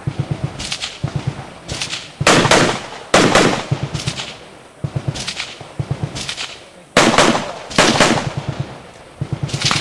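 Rifle shots fired at a steady pace, about one a second, around ten in all, some much louder than others.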